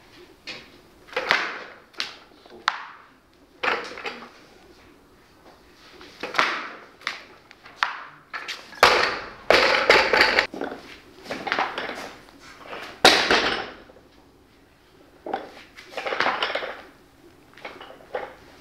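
Loaded barbell and rubber bumper plates clattering and knocking on a lifting platform: a string of separate sharp knocks and clanks, with the loudest crash about nine seconds in.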